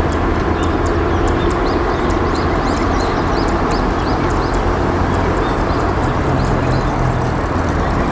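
Small bird chirping in a quick series of short high notes over a loud, steady rumbling noise.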